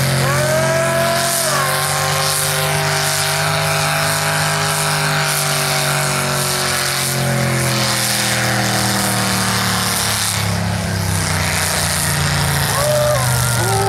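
Pulling tractor's engine running hard and steady while dragging the weight sled down the track, its pitch rising slightly and then easing back.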